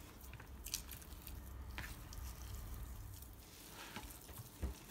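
Boiled potatoes being squeezed and mashed by hand in a plastic bowl: faint, soft squelching with a few light clicks, over a low hum.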